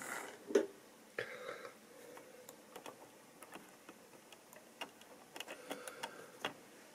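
A model railway tank wagon being handled by hand on the track: irregular small clicks and knocks of plastic wagon parts, wheels and couplings. There is a louder knock just over half a second in and a quick run of clicks near the end.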